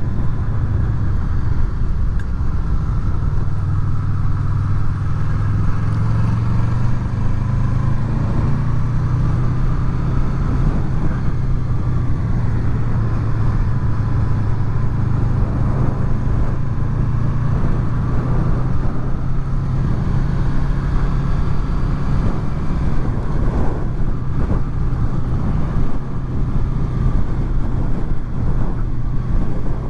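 Honda VFR800's V4 engine running as the motorcycle rides along at a steady pace, with wind and road noise, picked up by helmet microphones under furry windshields. The engine note shifts a little with the throttle now and then.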